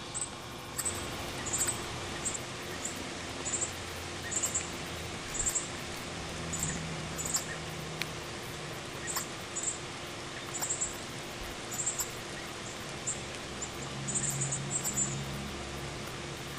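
Northern cardinals giving short, high, sharp chip calls, repeated irregularly about once a second and sometimes in quick clusters, over a steady background hiss.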